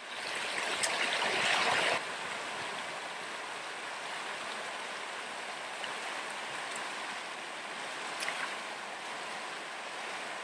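Shallow rocky river rapids rushing over stones, a steady hiss of white water, louder for the first two seconds and then even.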